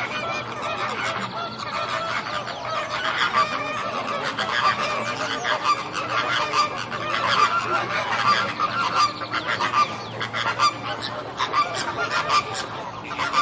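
A flock of flamingos calling together: a dense, unbroken chorus of many overlapping short honks.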